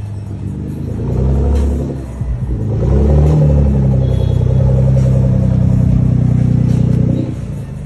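Nissan GT-R R35's twin-turbo V6 revving through its exhaust: a short rev about a second in, then a rev that climbs near three seconds in and is held high for about four seconds before dropping back.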